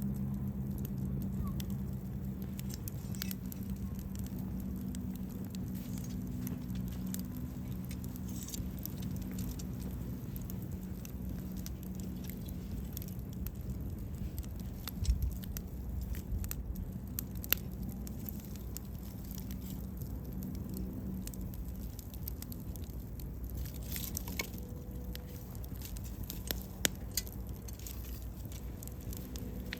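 Wood bonfire crackling steadily, with scattered small snaps and a few louder pops.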